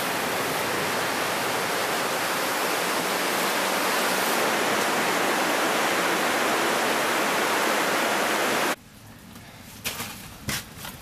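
Steady rushing of water running through a marble cave, which cuts off abruptly near the end. After it come a few sharp clicks of boots and stones shifting on loose rock.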